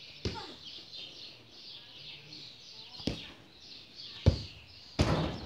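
Small birds chirping and twittering throughout, with a few sharp thumps of a football being kicked, the loudest a little over four seconds in, then a short scuffing noise near the end.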